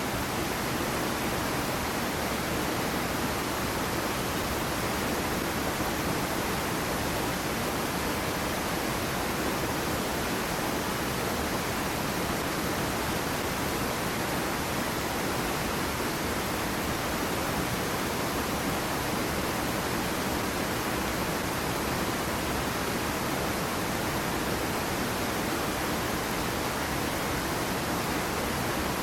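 Small waterfall on a stream, a steady, even rush of falling water.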